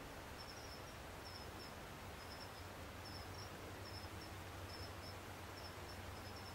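Faint insect chirping, short high chirps mostly in pairs repeating a little more than once a second, over a steady low hum and hiss.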